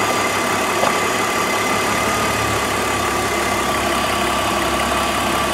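BMW petrol engine idling steadily with a steady high whine over it, while the oil filler cap is opened to make a deliberate vacuum leak that drives the mixture lean for the lambda sensor test.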